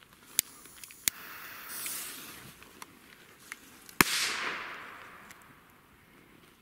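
Small Piccolo firecracker: two sharp clicks and a brief hiss as it is lit, then one sharp bang about four seconds in, with a long echo fading away.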